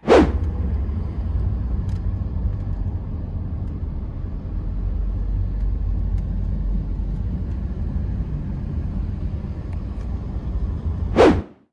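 Steady low rumble of road and engine noise inside a moving car's cabin. It starts and stops abruptly, each time with a brief louder spike.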